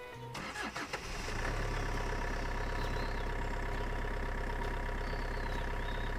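A small engine starts after a few clicks about a second in, then runs steadily at idle.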